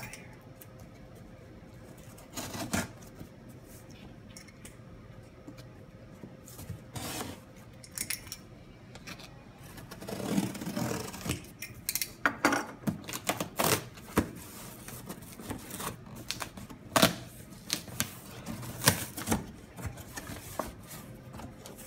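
Packing tape on a cardboard box being cut open, then the cardboard flaps handled and folded back: a string of scattered sharp taps, scrapes and rustles, starting a couple of seconds in.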